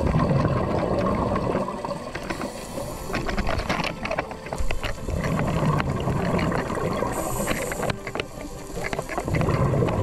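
Underwater scuba sounds: divers' regulator exhalations bubbling and gurgling, in low rumbling swells every few seconds, with a steady crackly hiss of water between them.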